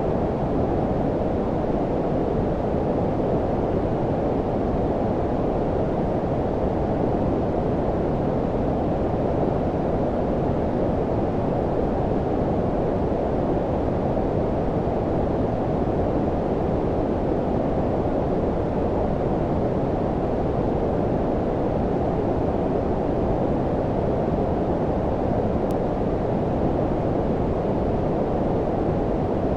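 Steady low-pitched noise, like brown noise: an even rumbling hiss with its weight below about 1 kHz and little treble, unchanging throughout.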